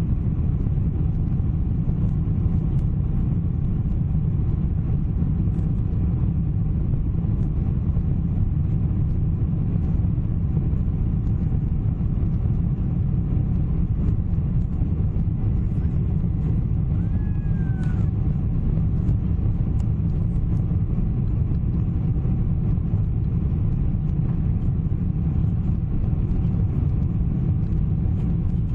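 Steady low rumble of a Boeing 747-400's engines and rushing airflow heard inside the passenger cabin during the climb after takeoff, with a faint steady hum running through it.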